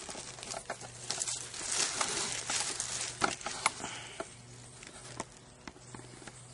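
A person eating ramen noodles with a utensil: noisy slurping and mouth sounds, with a few sharp clicks about three seconds in, then quieter.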